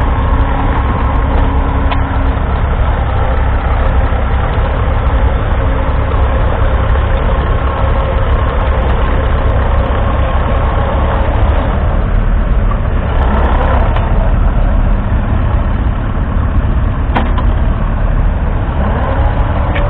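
1942 Fordson Model N's 4.4-litre four-cylinder petrol/TVO engine running steadily under load as the tractor pulls a two-furrow trailed plough through the soil, with a few faint clicks.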